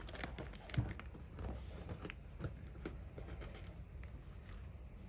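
Metal Zippo lighters being handled: a few light clicks and taps scattered over a few seconds, the sharpest about a second in.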